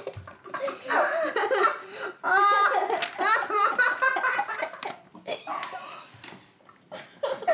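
Children laughing and giggling, with bits of excited chatter, quieting briefly near the end.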